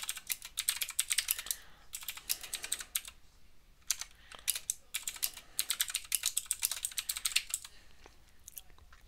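Typing on a computer keyboard: quick runs of keystrokes in several bursts with short pauses between them, thinning out and stopping about a second before the end.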